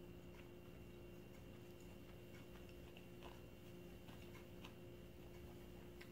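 Near silence: a steady low hum with faint, scattered clicks of a fork and fingers handling food on a ceramic plate.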